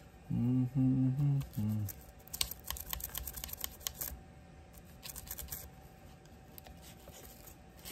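A man hums four short, low notes. About two seconds in comes a run of quick, light scratching clicks, a small hand tool scraping grime off a Schrade LB-5 folding knife.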